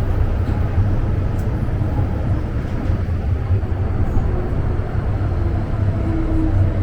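MTR M-Train running, heard from inside the car: a steady low rumble of wheels on rail. Near the end a faint motor tone comes in and steps slightly lower in pitch.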